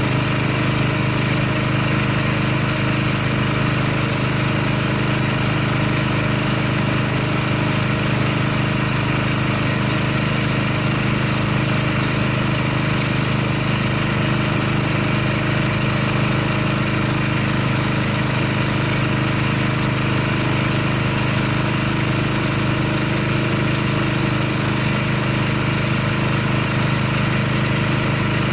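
Pressure washer running steadily while its wand sprays water, rinsing soap foam off a car.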